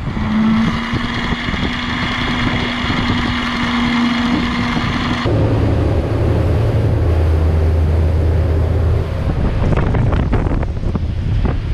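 Three 300 hp outboard engines running a boat at speed, with wind buffeting the microphone. About five seconds in, the sound switches abruptly from a steady, higher whine to a deeper, louder drone.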